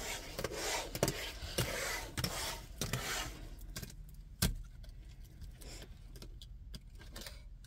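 Small diamond-painting hummingbird pendants being gathered and stacked by hand on a desk, clicking and clattering against each other and the tabletop. The clatter is busiest for the first three seconds or so, with one sharp click about four and a half seconds in, and then it goes quieter.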